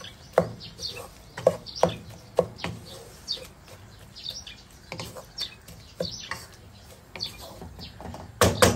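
Wooden spoon stirring boiled greens in a metal pot, knocking and scraping against the pot at irregular moments, with a quick cluster of louder knocks near the end.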